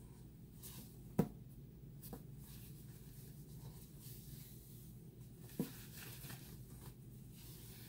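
A plaid necktie handled and swept close to the microphone: soft fabric rustling with sharp taps, one about a second in, a fainter one shortly after, and another about five and a half seconds in.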